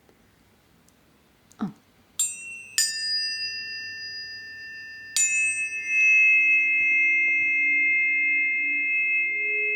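Tuning forks struck three times, about two, three and five seconds in, each strike a bright metallic attack that settles into high, steady ringing tones that overlap and sustain. Lower steady tones swell in beneath them about six seconds in. A short knock comes just before the first strike.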